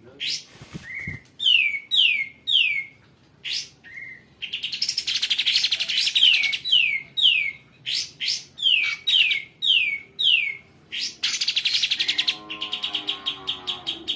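Kapas tembak songbird singing long: runs of quick falling whistled notes, about three a second, broken twice by fast, harsh rasping trills. A lower call joins near the end.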